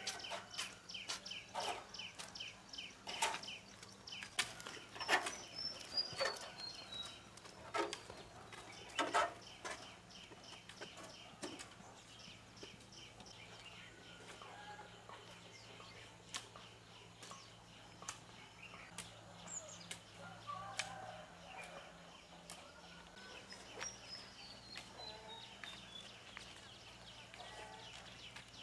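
Chickens clucking in a farmyard, with a small bird's falling high trill twice. A run of sharp knocks or snaps in the first half is the loudest sound; it then settles to quieter calls over a steady low hum.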